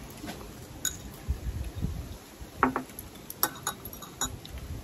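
Utensils clinking against bowls and dishes while eating: about five short clinks, one just past halfway ringing briefly, with a few low dull knocks in between.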